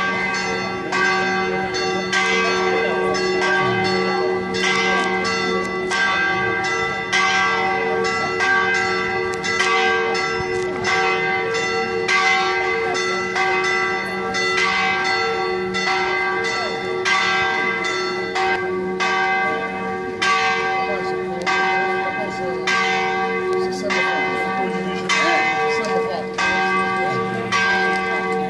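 Church bells pealing, struck over and over in a quick, continuous run with the tones ringing on between strikes.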